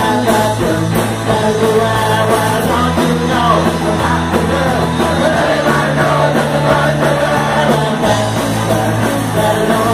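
Live punk rock trio (electric guitar, bass guitar and drums) playing loudly with shouted vocals. The bass drops to a lower note about three seconds in and climbs back up about eight seconds in.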